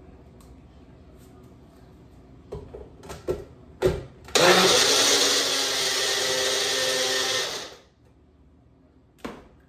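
Personal single-serve blender: a few knocks as the cup is pressed onto the base, then the motor runs for about three seconds blending frozen fruit, juice and yogurt, and stops. One more knock near the end.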